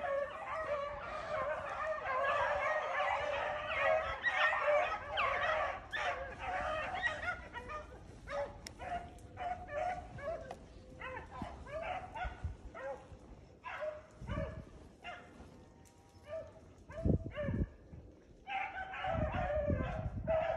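A pack of beagles baying as they run a rabbit on its scent, many voices overlapping, then thinning to scattered calls about halfway through. A few low thumps come near the end.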